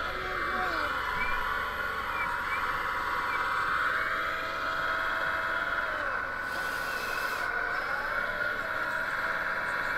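Electric motors and hydraulic pumps of radio-controlled scale construction machines whining as they work, their pitch sliding down and up with the load. A short hiss about six and a half seconds in lasts about a second.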